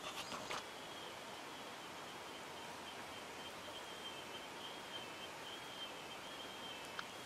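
Quiet outdoor background with a steady high-pitched insect drone. There are a few soft rustles or knocks in the first half-second and a single click near the end.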